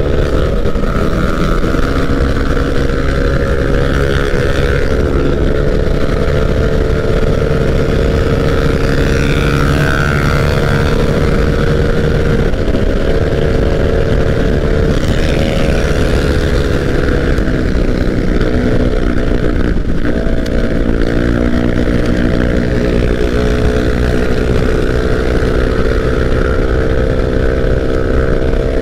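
Honda Vario scooter's single-cylinder engine running at sustained high speed, its pitch mostly steady but easing off and picking up again a few times, under a constant rush of wind noise.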